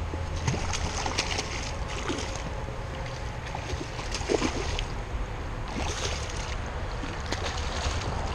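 A hooked fish thrashing and splashing at the water's surface close to the bank in several irregular bursts, with a steady low rumble of wind on the microphone underneath.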